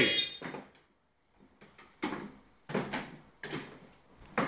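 A few short, separate bumps and rattles from a plastic ride-on toy Jeep as a child climbs out of its seat.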